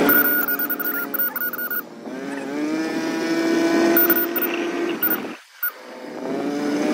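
Vehicle engine running on the move, its pitch rising about two seconds in and then holding steady.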